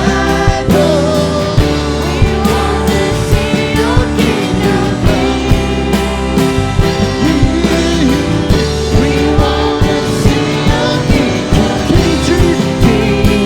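Church worship band playing, with a steady drum beat under sustained chords and singing.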